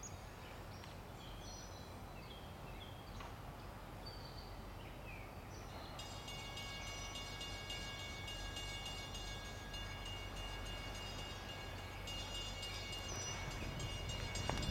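Metro-North GP40FH-2 diesel locomotive approaching from a distance: a low steady rumble that slowly grows louder. Birds chirp over it in the first few seconds, and a thin high whine joins about six seconds in.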